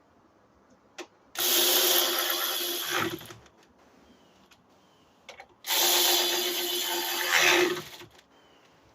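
Cordless power driver with a 10 mm socket running in two bursts of about two seconds each, driving in the two screws that hold a coolant overflow bottle. Each run winds down at the end as the screw seats.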